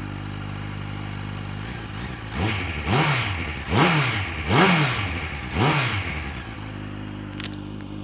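Honda motorcycle engine running through a Delkevic slip-on silencer with the dB killer baffles fitted, a bit louder than standard. It idles, is blipped four times in quick succession, each rev rising and dropping back, then settles to idle again. A short click near the end.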